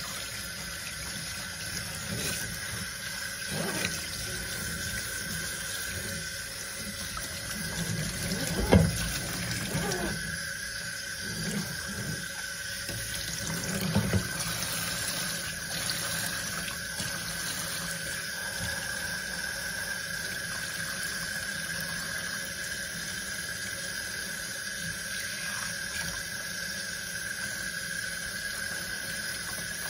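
Water running from a kitchen sink's pull-out sprayer, splashing onto a wet puppy and into a stainless steel sink as a steady hiss. There are a few brief louder sounds near the middle.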